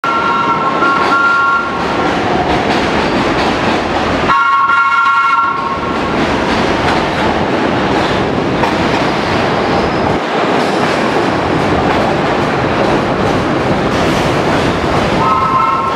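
Antique New York City subway train pulling into an elevated station, its wheels rumbling steadily on the rails. The train's horn sounds three times on two notes: briefly at the start, longer about four seconds in, and again near the end.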